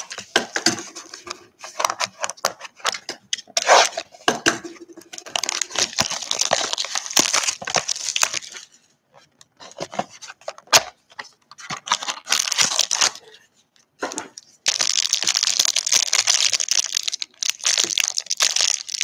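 Clear plastic wrapping on a pack of basketball trading cards being torn open and crumpled in the hands, in irregular crackling bursts. For the last few seconds the crinkling turns dense and continuous.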